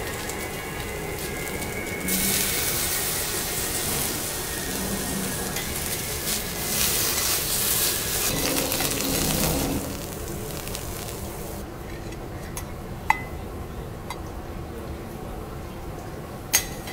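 Bok choy sizzling on a hot steel teppanyaki griddle as it is turned with a spatula and fork. The sizzle comes up about two seconds in, grows louder and then drops away about ten seconds in. Near the end come a couple of sharp clinks.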